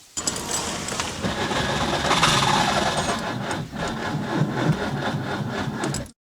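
Skoda Favorit being cranked on its starter motor without the engine catching: a steady rhythmic grinding churn that stops abruptly about six seconds in.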